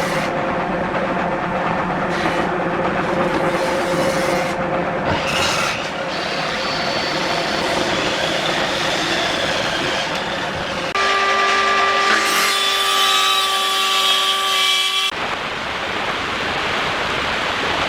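Power woodworking tools running steadily on timber, a constant machine hum with a rushing noise; the sound switches abruptly to a different, higher-pitched steady whine about eleven seconds in and back about four seconds later.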